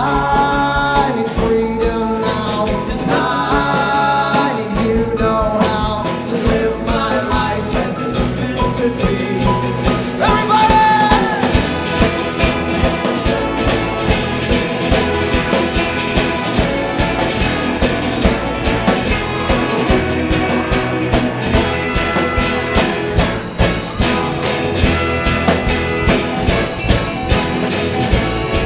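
Live folk-rock band playing on acoustic guitars, electric bass, brass, sousaphone, keys and drums. Voices sing over it in the first part, and from about halfway a steady, driving drum beat carries the rest.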